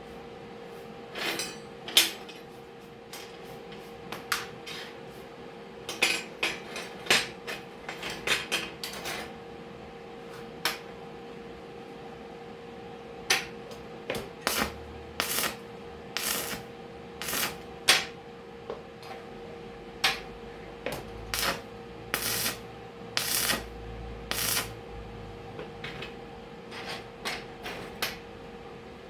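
Irregular metal clanks and taps, some single and some in quick runs, over a steady hum.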